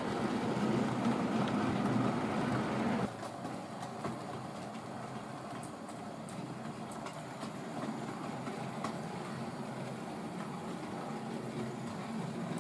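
Hornby Railroad GWR 101 class OO gauge model tank locomotive running along the track with a short train of wagons: a steady motor whirr and wheels rolling over the rail. It drops suddenly to a quieter run about three seconds in, with a few faint clicks.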